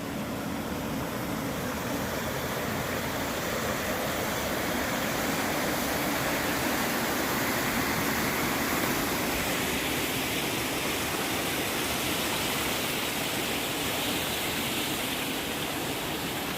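Waterfall: a steady rush of falling water, turning brighter and hissier about nine seconds in.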